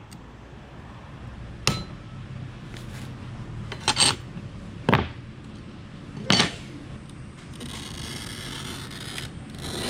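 Float glass being snapped off along a score line with pliers: a handful of sharp cracks and clicks, spaced a second or two apart.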